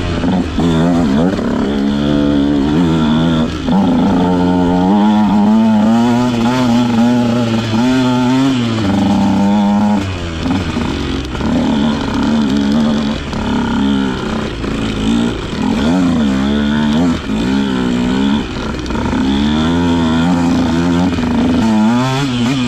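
Husqvarna TC 150 dirt bike engine under way on a climbing trail, its revs rising and falling with the throttle, with several short quieter dips in the middle as the throttle comes off.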